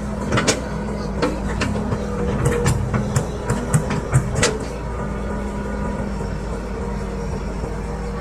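Excavator's diesel engine running steadily under a working load, with a quick series of sharp knocks and clanks in the first half, then steady running.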